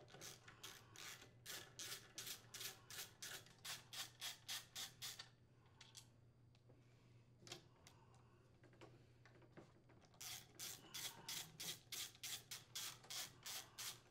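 Faint socket ratchet working in short, even strokes, about three a second, as it unthreads the crankcase cover screws on a small engine. The strokes stop for a few seconds midway, with a couple of single clicks, then start again.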